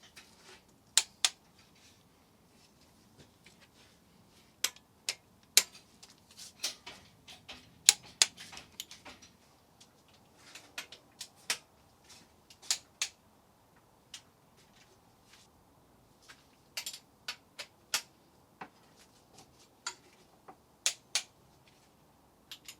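Sharp, irregular metallic clicks of a torque wrench on the cylinder head bolts of a VW Golf Mk2 16v engine, as each bolt is brought to its first tightening stage of 40 Nm. Some clicks come in quick pairs, with a denser run of ratcheting clicks about a third of the way in.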